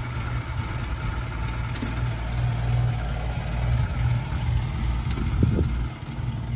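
1946 Morris Eight Series E's small four-cylinder side-valve engine idling steadily, bubbling away.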